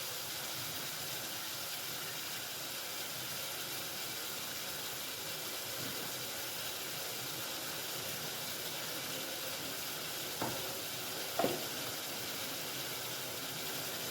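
A saucepan of spiced kahwa water just coming to the boil on a stove at full flame, with a steady hiss. Near the end come two short knocks a second apart.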